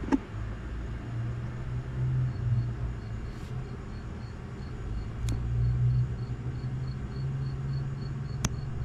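Outdoor ambience: a steady low rumble with a wavering hum, swelling twice. An insect chirps faintly and evenly, about three times a second. A few sharp clicks come about five seconds in and near the end.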